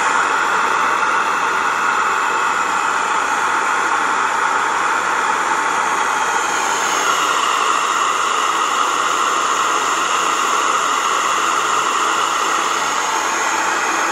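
Waldner BioTech Single electric grain mill running steadily while grinding amaranth into flour: an even, loud, hissing whir of motor and grinding.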